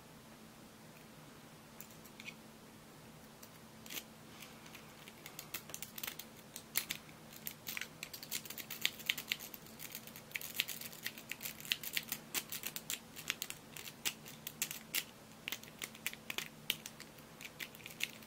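Rake pick scraping over the pin tumblers of a euro-profile cylinder lock held under a tension wrench: small metallic clicks and scrapes, a few at first, then coming thick and fast from about five seconds in.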